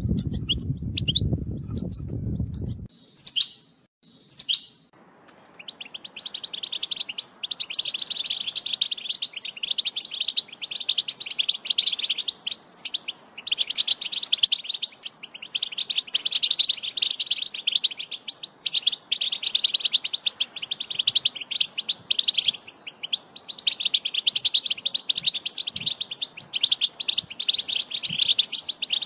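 European goldfinch song: fast, dense twittering phrases with short pauses between them, beginning with a few scattered chirps. A low rumble in the first few seconds cuts off abruptly about three seconds in.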